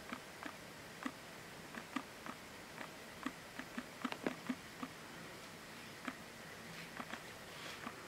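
Irregular light tapping, a tap or two a second, with a quick cluster of taps about four seconds in, over a faint steady hiss.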